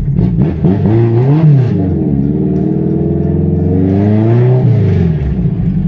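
Ford Versailles's carbureted, naturally aspirated AP four-cylinder engine accelerating. Its revs rise and fall briefly about a second in, then climb steadily for about two and a half seconds and drop off near the end as the throttle is lifted.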